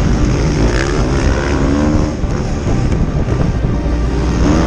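Motocross bike engine at race speed, revving with its pitch rising and dropping several times. Heavy wind rumble on the helmet-mounted microphone.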